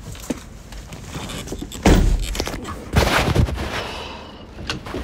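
Loud thumps and rustling from a phone being jostled against clothing as someone scrambles into a van's cab, with the two heaviest knocks about two and three seconds in.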